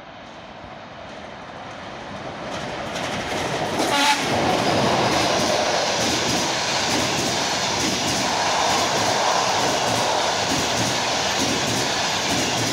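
ChS4 electric locomotive approaching at speed and giving a short, loud blast on its air horn about four seconds in as it reaches the camera, then the passenger coaches running past with steady wheel noise and quick, regular clicking of wheels over the rail joints.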